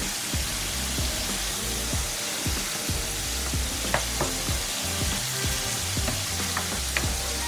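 Honey hot barbecue sauce heating in a pan with a steady sizzle, stirred by a utensil that makes short, irregular clicks and scrapes against the pan.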